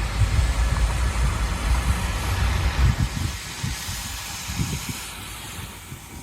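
Combine harvester running with a deep engine rumble and a hiss over it; the rumble fades after about three seconds as the machine moves away.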